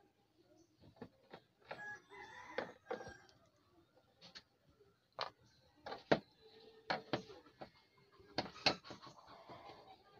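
Screwdriver working the screws out of a TV's plastic back cover: a string of irregular sharp clicks and taps as the tip catches and turns in the screw heads.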